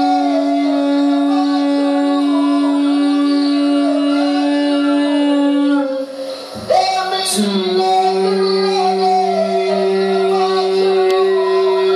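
Sustained drone music with a rich stack of overtones. One steady pitch is held for about six seconds, then breaks off briefly, and two new steady tones, one higher and one lower, take over.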